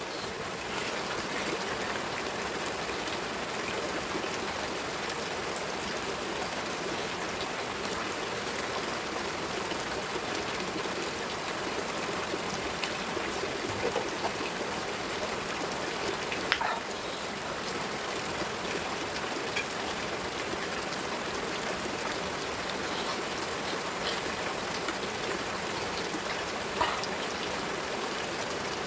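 A steady rushing hiss like rain or running water, with a few faint short clicks.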